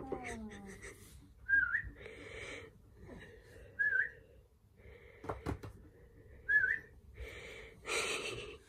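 Alaskan malamute whining: three short, high, wavering whines about two and a half seconds apart, with breathy huffs in between.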